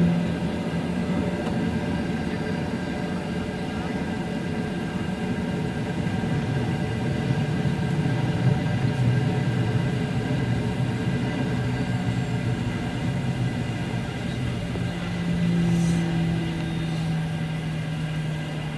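Boeing 737-800's CFM56-7B turbofan engines heard from inside the passenger cabin at low taxi power: a steady drone with a thin whine above it. The low hum dips slightly in pitch midway and comes back up near the end.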